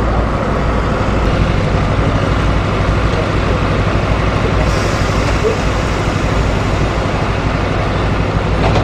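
A boat's engine running with a steady low drone, heard from on board.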